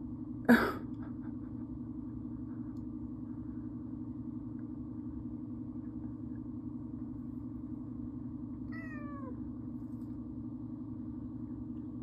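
A house cat meowing once, a single falling meow about nine seconds in, over a steady low hum. A short, loud sharp sound about half a second in is the loudest moment.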